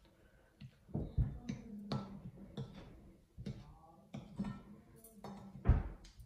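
Metal spoon stirring a flour-and-spice coating in a ceramic plate: irregular taps and light scrapes of the spoon against the plate, with one louder knock about five and a half seconds in.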